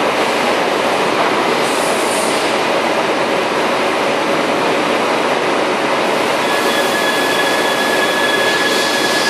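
A crown rack cutter on a CNC machine's spindle milling the teeth of a spiral bevel pinion, a loud, steady cutting noise. About six and a half seconds in, a thin high whine joins it.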